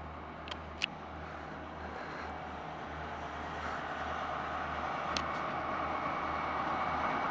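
Two BB 75300 diesel locomotives approaching slowly at the head of a train, their engine and running noise growing steadily louder. A few brief sharp clicks come near the start and again about five seconds in.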